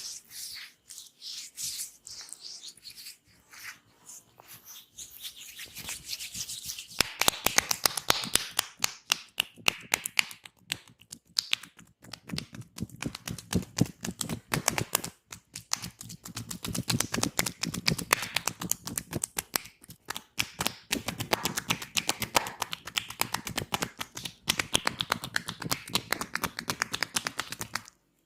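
Percussive massage strikes: rapid, rhythmic tapping on the body, soft and sparse at first, then fast and loud from about six seconds in.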